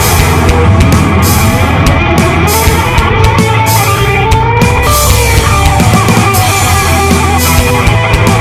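Heavy rock music with distorted electric guitar and a drum kit.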